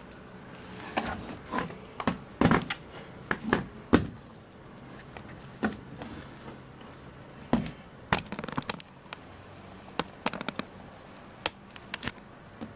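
Handling noises as a laptop is turned and its parts touched: a dozen or so scattered clicks, taps and light knocks. A faint, steady low hum runs underneath.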